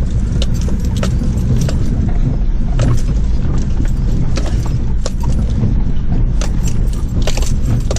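An older four-wheel drive crawling in low range over a rocky track, heard from inside the cabin. A steady low engine rumble runs under frequent knocks and rattles from the jolting vehicle.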